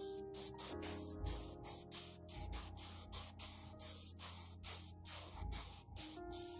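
Rapid short hissing strokes, about three a second, from hand work on a plastic scale model kit, over soft background music with held notes.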